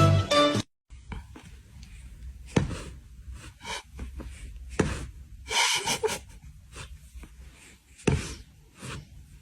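Close breathy sniffs and snorts with scattered soft knocks and rustles, the loudest sniff about six seconds in. A short strain of guitar music cuts off in the first second.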